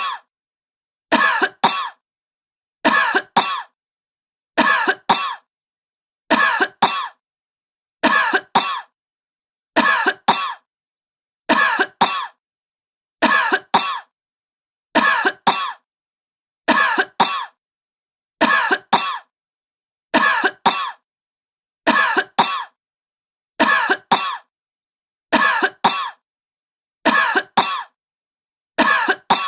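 A sick woman coughing: the same pair of short coughs repeats evenly, about one pair every second and a half to two seconds, with dead silence between pairs.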